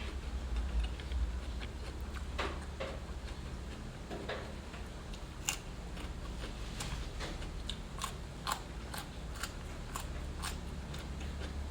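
Close-up eating sounds: biting and chewing with crisp, irregular crunches and small clicks, over a steady low hum.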